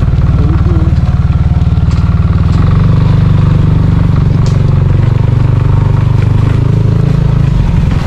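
Small motorcycle engine running steadily while riding along a dirt road, heard from on the bike.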